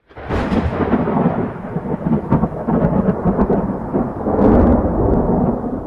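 Thunder-like sound effect for a logo intro: a loud, deep rumble with sharp crackles that starts abruptly and is loudest about four and a half seconds in.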